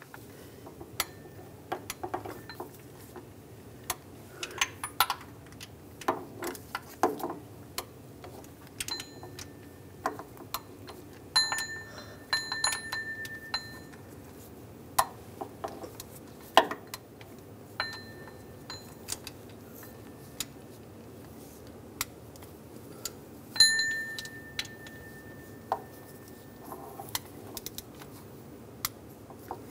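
Scattered metallic clicks and clinks of a torque wrench and socket extension on the water pump's small bolts as they are torqued to 9 foot-pounds. Several of the clicks ring briefly.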